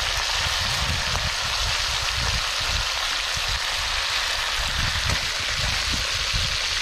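Pieces of fish frying in hot oil in a pan over a wood fire: a steady, even sizzle, with an irregular low rumble underneath.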